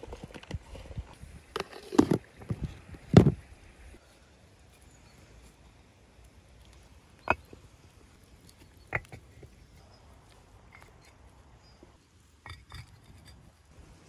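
Scattered knocks and clatters as bricks are handled and set down around a bed of wood embers. The loudest two come about two and three seconds in, followed by a few single clicks with quiet between them.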